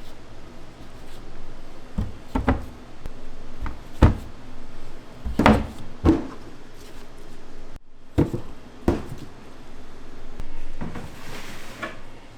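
A series of knocks and thuds from containers and utensils being handled in a kitchen, irregularly spaced, with a short hiss near the end.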